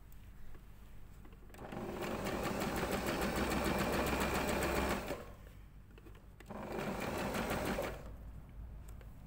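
Electric sewing machine stitching a zip through fabric and lining layers in two runs of rapid, even needle strokes. The first run starts about one and a half seconds in and stops about five seconds in; a shorter second run follows a second and a half later.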